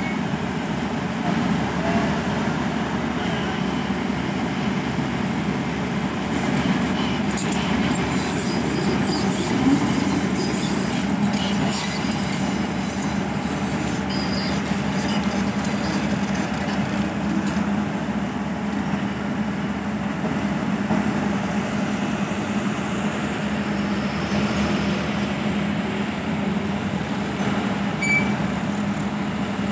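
Diesel engines of heavy construction machinery, a crane and a tracked excavator, running steadily with a continuous low drone.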